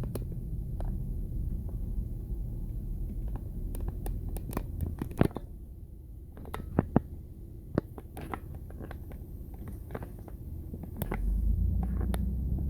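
Low road rumble inside a moving vehicle, with scattered sharp clicks and crackles. The rumble grows louder near the end.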